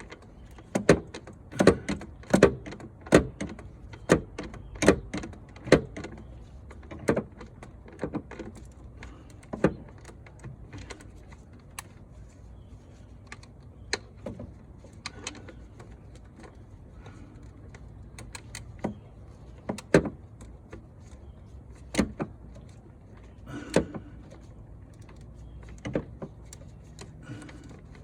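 Hand ratchet and socket working an intake-manifold bolt in short strokes: a quick, regular run of clicks for the first seven seconds or so, then scattered single clicks and knocks as the socket is repositioned on the hard-to-reach back bolt.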